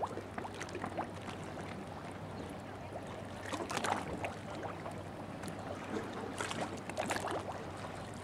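Boat engine running steadily at low speed, with water splashing against the hull in irregular bursts, the strongest about halfway through and again near the end.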